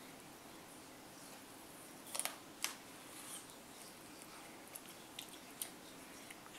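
A toddler biting into a whole unpeeled apple: a few crisp crunches of teeth on the skin. The two sharpest come close together about two seconds in, with smaller clicks later.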